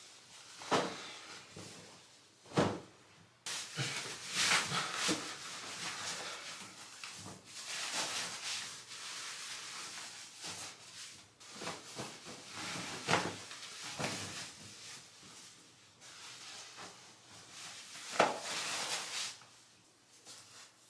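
Clothing rustling and swishing as a shirt comes off and scrubs go on. A few sharp knocks are mixed in, the loudest near the end.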